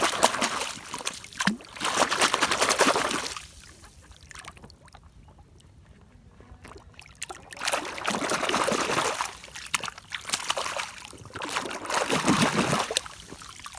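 Water splashing and trickling while a plastic toy gun is washed and scrubbed by hand, with small knocks of plastic. It goes quiet for a few seconds in the middle, then the splashing resumes.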